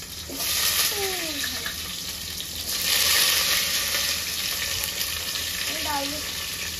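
Chopped vegetables sizzling as they are tipped from a steel plate into hot oil in a steel pot. The sizzle swells just after the start and grows loudest about three seconds in.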